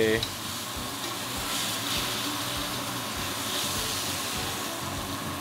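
Steak searing in a hot cast iron pan: a steady sizzle.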